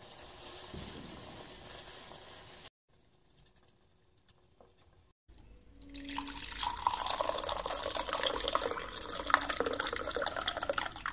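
Water boiling faintly in a steel pot with tea leaves. After a short silence, from about six seconds in, tea pours in a thin stream into a ceramic mug, splashing as it fills.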